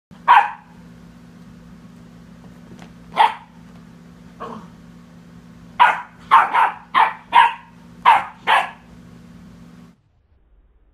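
Black Mouth Cur puppy barking at a cat: three single barks a few seconds apart, then a quick run of about seven barks. A steady low hum runs underneath and stops about a second before the end.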